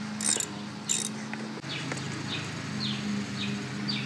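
Two short metallic clinks of a hand tool working a motorcycle's oil drain plug, then a high chirp, falling in pitch each time, repeating about twice a second over a steady low hum.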